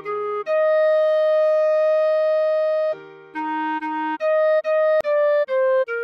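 Clarinet playing a slow melody: a short note, then one long held high note for about two and a half seconds, then a run of shorter notes stepping down. A soft low note sounds underneath at first, and there is a single click about five seconds in.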